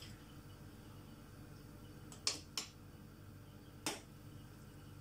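A spoon knocking lightly against a stainless steel soup pot while stirring: three short sharp clinks, two close together about two seconds in and one near four seconds, over a faint steady low hum.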